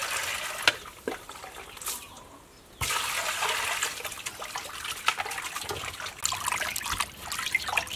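Water poured from a plastic jug into a steel bowl of raw pork ribs, then splashing and sloshing as the ribs are rubbed and washed by hand. The pouring hiss comes at the start and again about three seconds in, with a short pause between.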